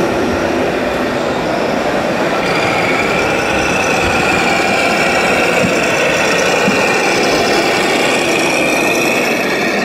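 Scale RC model truck driving, a steady whine running from a few seconds in until near the end, over a steady background din.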